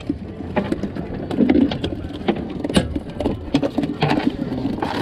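Small baitfish flopping on a boat's deck: a dense run of quick, irregular taps and slaps.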